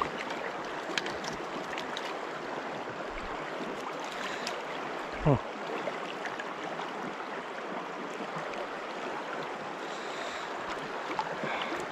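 Fast river current rushing steadily over a shallow riffle around a wading angler. About five seconds in there is one short, sharp whoosh that falls steeply in pitch.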